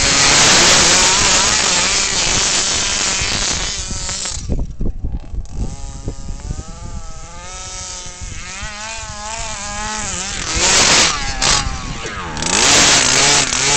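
The 23cc two-stroke gas engine of a bigfoot RC truck with a DDM tuned pipe, revving at high throttle. It drops back briefly about four to five seconds in, then its pitch rises and falls repeatedly as the throttle is worked, and it opens up loud again near the end.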